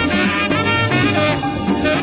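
Live jazz band playing: a tenor saxophone line over bass, drums and percussion, heard as an audience recording.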